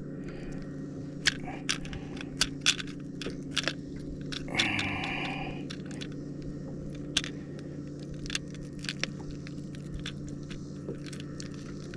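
Irregular sharp clicks and scrapes of crankbait hooks being worked loose from a bass that has swallowed the lure deep, over a steady low hum. A short rush of noise comes about four and a half seconds in.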